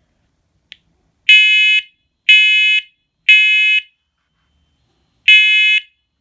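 First Alert PC900V combination smoke and carbon monoxide alarm sounding its piercing alarm beeps. It gives three half-second beeps a second apart, a short pause, then starts the next set near the end. This is the three-beep temporal pattern of a smoke alarm signal.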